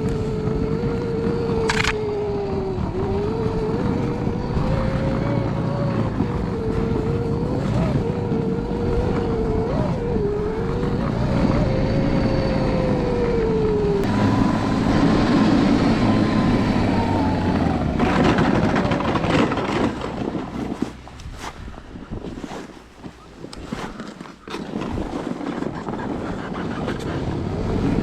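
A 72-volt electric snowbike with a TrackNGo track kit riding through deep snow: the motor whines, its pitch rising and falling with speed, over the rumble of the track churning snow. About halfway in the whine gives way to a louder rumble, and later the sound drops away in dips before picking up again.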